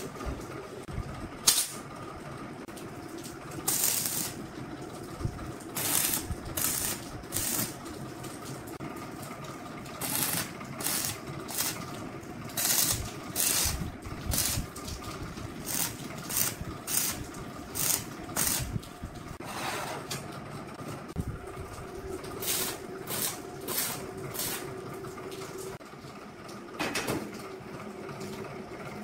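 Stick (arc) welding tack welds on steel tubing: a string of short crackling hisses, each under a second, as the arc is struck again and again, over a steady hum.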